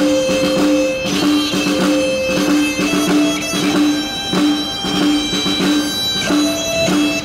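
Live instrumental music led by an electric guitar: a slow melodic line of long held notes alternating with shorter ones, repeating over and over.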